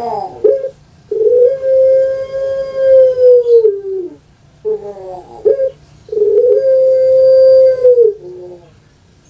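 Puter pelung (Streptopelia risoria), a long-voiced dove, calls twice. Each call is a short rolling opening followed by one long held coo that drops in pitch at its end.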